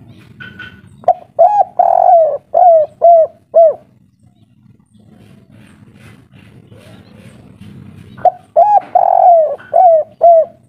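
Spotted dove (tekukur) cooing in the kuk-3 song pattern. It gives two phrases of six ringing coos each, the third coo drawn out. The first phrase starts about a second in and the second near the end.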